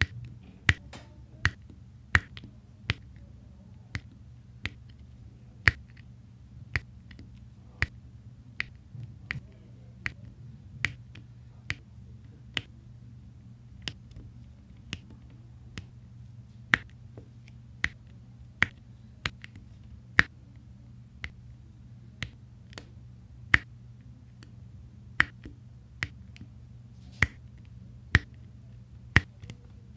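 Resin diamond-painting drills pressed one by one onto the sticky canvas with a drill pen, each placement a sharp click, about one or two a second at an uneven pace. A low steady hum runs underneath.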